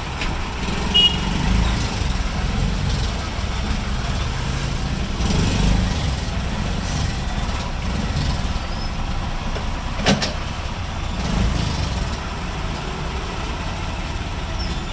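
Auto-rickshaw engine running as it crawls along close beside a truck, heard from inside the open cabin. A low rumble swells a few times, and a single sharp knock comes about ten seconds in.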